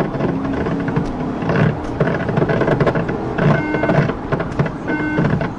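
Inside a police patrol car's cabin, its engine and road and wind noise as it accelerates hard at highway speed. Short repeated tones come in over it in the second half.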